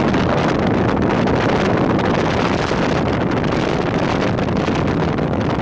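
Sightseeing motorboat under way: its engine running steadily under the rush of water along the hull, with wind buffeting the microphone.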